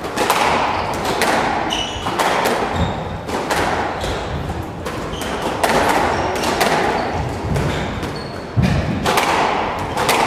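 Squash rally: the rubber ball is struck by rackets and slaps off the court walls about once a second, each hit ringing in the enclosed court, with short sneaker squeaks on the wooden floor between shots. A heavier thud comes near the end.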